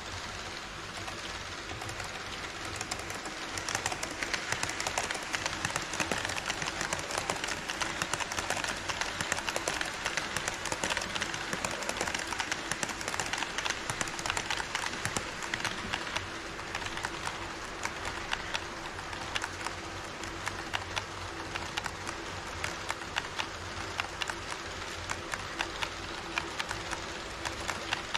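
HO-scale model Twilight Express train running on KATO Unitrack: a steady running noise of the wheels on the rails with quick, irregular clicking as they cross the track joints. It grows louder about four seconds in, as the train comes close, and stays so.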